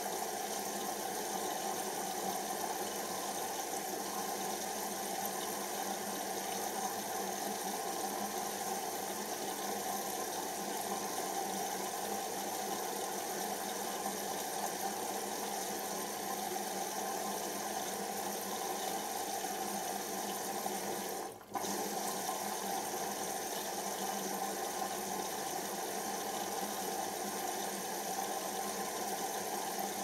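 Hoover Optima OPH714D washing machine taking in water for its second rinse: a steady rush of water into the drum, which cuts out for an instant about two-thirds of the way through.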